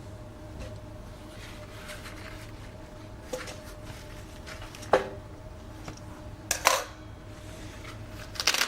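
A foldable fabric solar charger being handled and unfolded: a few separate short clicks and rustles, spaced a second or more apart, with a small cluster of them about two-thirds of the way in and another near the end, over a faint steady hum.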